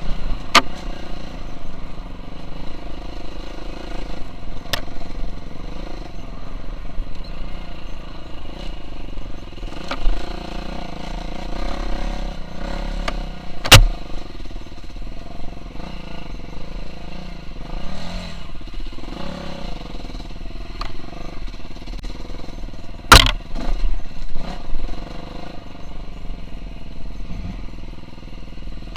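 KTM 350 SX-F four-stroke single-cylinder motocross engine running under riding load, its revs rising and falling. Several sharp knocks cut across it, the loudest about a third of the way in and again about four-fifths in.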